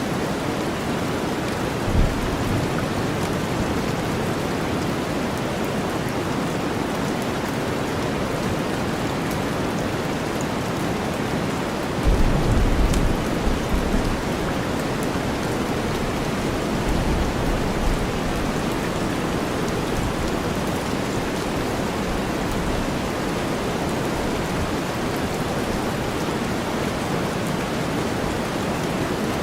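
Steady rain mixed with deep white noise, with brief low rumbles of thunder about two seconds in and again around the middle.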